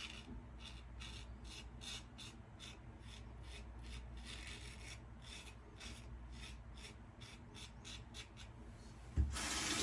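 Single-edge safety razor with a GEM blade scraping stubble through shaving lather in short, rasping strokes, about two or three a second. A tap starts running near the end.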